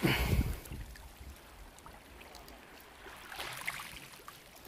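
Wind rumbling on the microphone, strongest in the first half second, then a faint steady rush.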